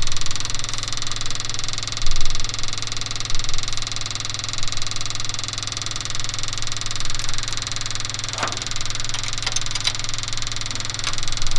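A steady mechanical hum, with a few light metallic clicks of tools on the engine about eight to ten seconds in.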